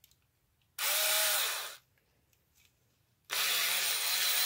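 Small DC motor of an old Craftsman cordless screwdriver running on a bare 18650 lithium cell wired straight to it, a test of the new power source. It runs for about a second, stops, then starts again near the end and keeps running.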